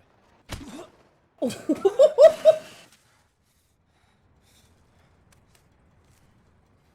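A short knock, then a person laughing in a quick run of rising, pitched bursts lasting about a second and a half, followed by near quiet.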